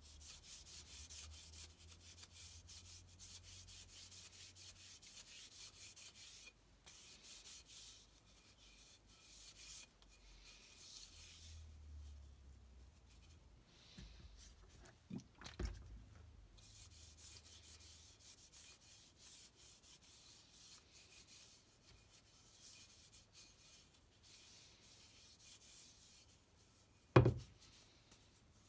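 Steel wool rubbed quickly back and forth along a wooden hickory hammer handle: fast scratchy strokes in long runs with short pauses. A sharp knock, the loudest sound, comes near the end.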